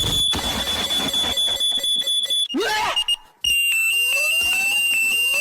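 Electronic alarm sound: a steady high beep tone, then after a brief break a rapidly pulsing high alarm beep with rising whistle-like glides over it.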